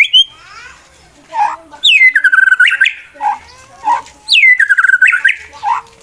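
White-rumped shama (murai batu) giving its aggressive challenge song, used to provoke rival males to fight: two loud phrases, each sliding down from a high note into a fast rattling run, with short lower notes in between.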